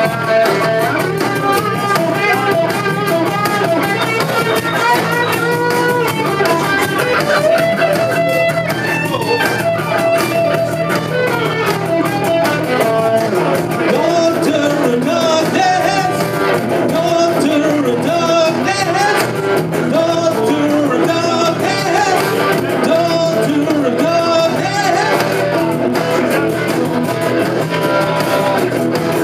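Live rock band playing a song on electric guitars, a moving guitar line over a steady bass.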